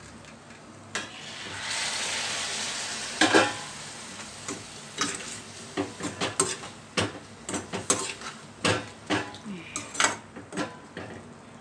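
Water poured from the lid plate into a hot steel kadai of frying curry, hissing and sizzling for about two seconds, with a clunk near the end of the pour. Then a steel spoon stirs and scrapes the pan, with repeated clinks of metal on metal.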